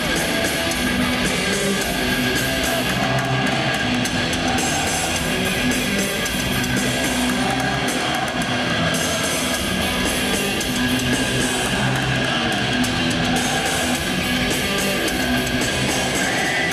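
Heavy metal band playing live: distorted electric guitars over bass and drums, in a steady, repeating riff. It is captured on an 8mm camcorder.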